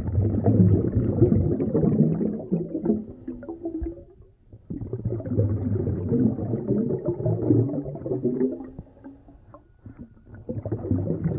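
Scuba regulator exhaust bubbles gurgling past the camera as the diver breathes out underwater: two long exhalations of about four seconds each, with a short pause for a breath in about four seconds in, a longer pause, and a third exhalation starting near the end.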